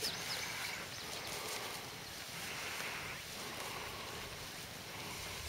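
Steady rushing noise typical of wind on the microphone outdoors, with no distinct events.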